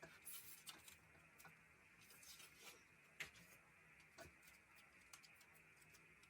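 Faint, scattered small clicks and rustles of photocards and plastic binder sleeves being handled.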